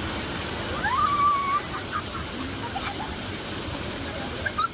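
Steady rushing of a waterfall, with a brief high call about a second in.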